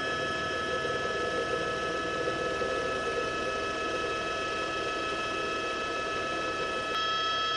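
Steady drone of a helicopter's turbine engine and rotors with a high whine of several constant tones, as heard from the aircraft filming from the air. The sound shifts slightly about seven seconds in.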